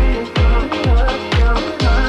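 Upbeat electronic dance background music with a heavy kick drum about twice a second.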